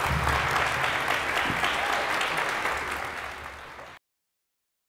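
Audience applauding: dense clapping that fades over the last second and then cuts off to silence about four seconds in.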